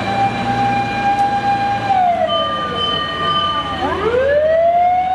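Fire engine siren on a Japanese aerial ladder truck: a held wailing tone that sinks in pitch about two seconds in, then swoops back up to full pitch near the end. A low rumble runs beneath it.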